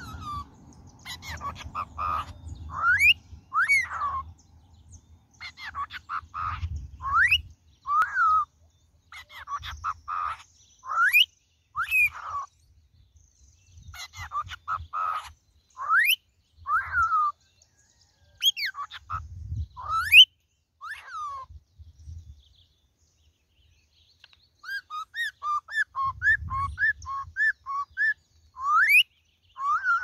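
Cockatiel whistling its learned song and phrases in short rising and falling whistles. Near the end comes a quick run of about ten short notes.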